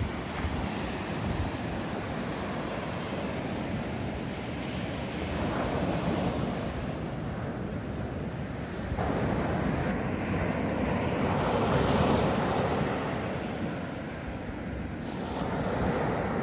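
Sea waves breaking and washing up a beach, swelling louder about six seconds in and again over a few seconds near ten to thirteen seconds in. Wind buffets the microphone throughout.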